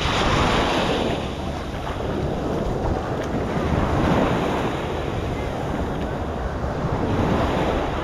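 Small ocean waves breaking and washing up the sand, swelling about three times, a few seconds apart. Wind buffets the microphone underneath.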